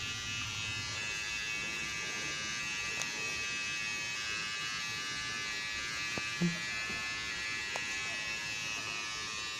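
Electric hair clippers running with a steady buzz as they trim hair along a man's jaw and chin, with a few faint clicks.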